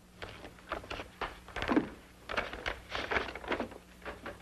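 A string of soft, irregularly spaced knocks and thuds over a steady low hum.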